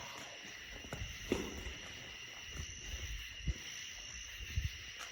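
Footsteps walking at an unhurried pace, irregular soft thuds roughly once a second, over a steady faint high-pitched hum.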